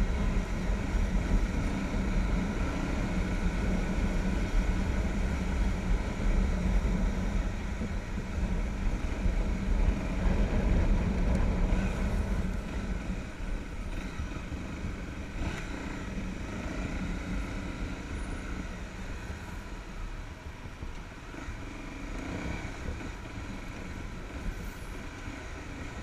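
Motorcycle engine running while riding, with wind rushing over the on-board microphone; louder for the first ten seconds or so, then easing off.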